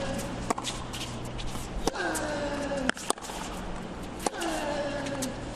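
Tennis rally on a hard court: racquets striking the ball about every second or so, and twice a player grunts on his own shot, a vocal sound that falls in pitch.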